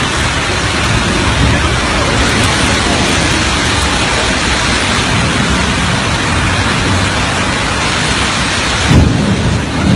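Storm wind and driving rain: a dense, steady rushing noise, with a louder surge about nine seconds in.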